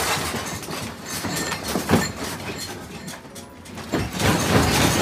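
Furniture and household objects rattling and knocking as the room shakes in an earthquake, with a sharp knock about two seconds in and louder clattering near the end.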